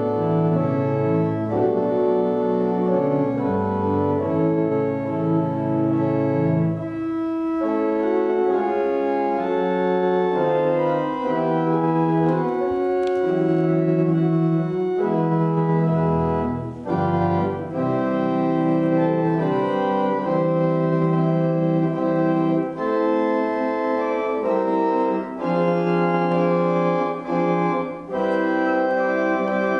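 Organ playing a slow piece of held chords that change every second or two over a moving bass line.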